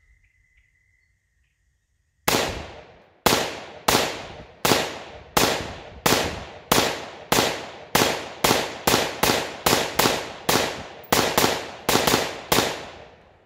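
AR-15 pattern rifle fired semi-automatically, about twenty shots with a short ringing tail after each. They start about two seconds in, roughly one a second, then quicken to two or three a second.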